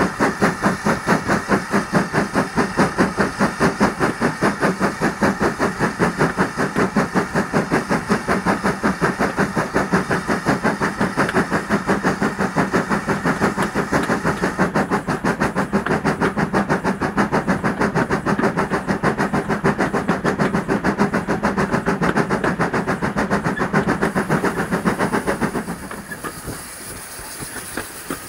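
Steam locomotive working under steam, its exhaust beating in a fast, even rhythm of about four to five chuffs a second. Near the end the beats stop suddenly, leaving a quieter hiss and running noise.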